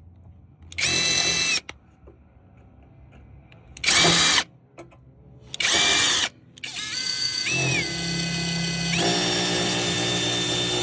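Electric drill drilling out the pop rivets that hold a truck tail light. Three short bursts, then a long steady run from about seven seconds in, its whine stepping up in pitch about two seconds later.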